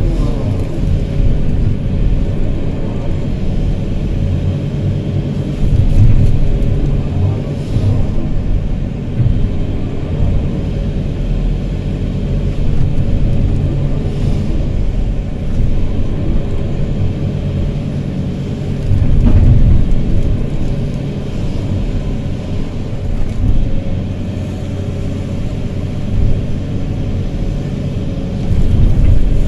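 Hydraulic excavator's diesel engine running steadily with a low rumble, heard from inside the cab while the bucket digs sand. The engine swells louder under hydraulic load a few times, about six seconds in, near twenty seconds and near the end.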